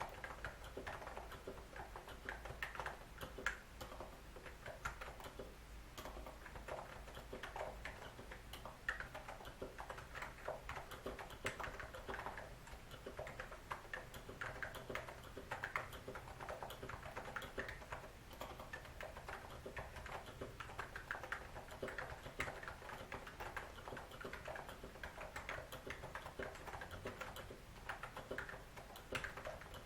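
Continuous typing on a NiZ Plum 75 electro-capacitive keyboard with lubed switches: a steady stream of soft, irregular key clicks. The uploader says the lube ruined its typing sound.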